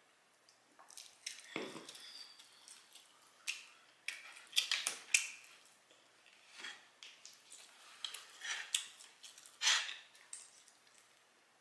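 Close-miked chewing and lip-smacking of a person eating barbecue ribs and fried chicken, heard as irregular, crackly mouth sounds every second or two.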